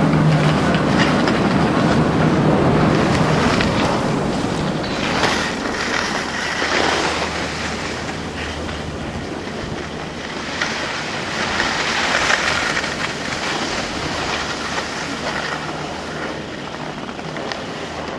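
Chairlift running: a steady low mechanical hum from the lift machinery with the haul rope's clicking and clatter. It grows gradually fainter as the view moves away from the station.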